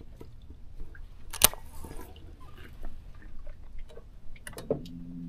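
Small clicks and knocks of a rod and reel being handled in a small aluminium boat, with one sharp click about a second and a half in and a short low hum near the end.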